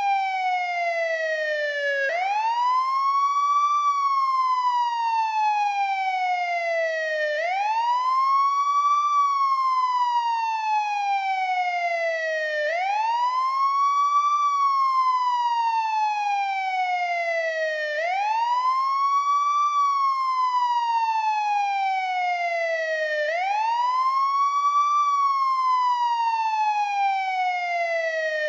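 Old-model NYPD police siren on the wail setting: one clean tone sweeping slowly up and down in pitch. Each climb is quick and each fall is slower, and the cycle repeats about every five seconds.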